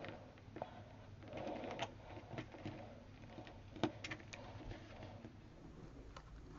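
Faint rustling of paper being handled and smoothed flat by hand, with a few light ticks and taps, the clearest about four seconds in.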